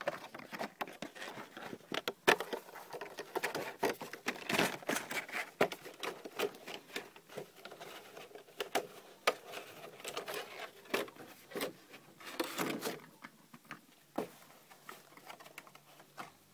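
Hands handling an e-reader's cardboard box, inner tray and plastic wrap: an irregular run of rustles, scrapes and small knocks that thins out near the end.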